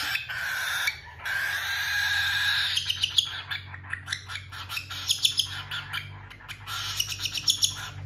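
Hungry cockatiel making its raspy food-begging call while being syringe-fed, breaking into a run of rapid short chirps and clicks from about three seconds in.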